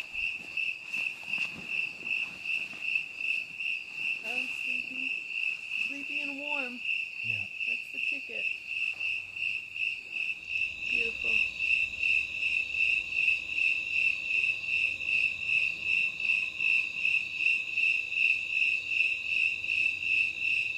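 Crickets chirping in a steady chorus, a high chirp pulsing evenly over and over, laying down a beat. A few faint murmured voice sounds come in briefly early on.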